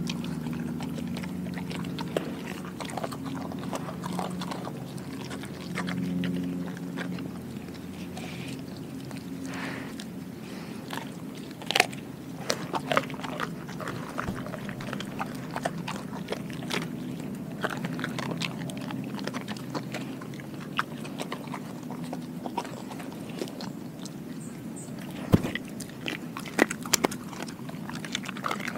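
Doberman chewing a whole raw Cornish hen, with irregular sharp crunches as the bones crack, the loudest about midway and in a cluster near the end.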